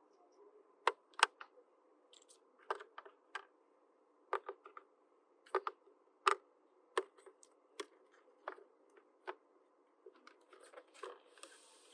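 Small plastic toy pieces handled and set down, making sharp irregular clicks and taps, about one or two a second, with a brief soft rustle near the end.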